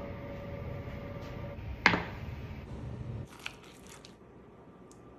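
A steady hum with one loud, sharp clunk about two seconds in. After it, a spoon breaks into the baked puff-pastry crust of a chicken pot pie, giving a few quick, crisp crunches and squishes.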